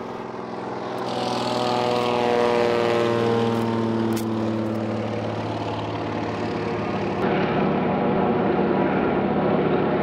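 Single-engine floatplane's propeller engine flying past low, its note falling in pitch as it goes by about two to five seconds in, then running on steadily as the plane climbs away.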